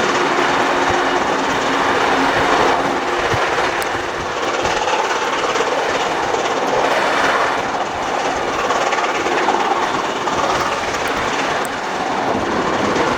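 Train hauled by steam locomotive 3801 running along the line: a steady noise of wheels on rails, swelling and easing a little.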